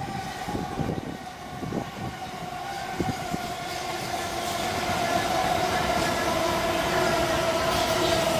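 A Southern multiple-unit passenger train passing through the station at speed, its wheels knocking over the rail joints. A steady whine slowly drops in pitch and grows louder toward the end.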